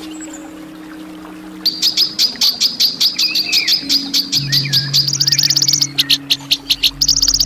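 A songbird giving harsh, sharp chirps in quick succession, about six a second, starting just under two seconds in. The notes break into faster rattling trills twice in the later half, among a few softer whistled glides.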